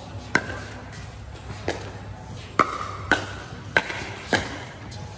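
A pickleball rally: six sharp pocks of the hollow plastic ball off paddles and the court, coming about every half second to second, several with a short ringing ping.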